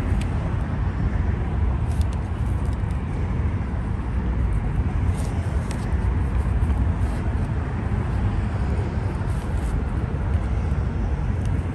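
Steady low rumble of distant traffic and outdoor background noise, with a few faint light clicks as a new brake pad is handled.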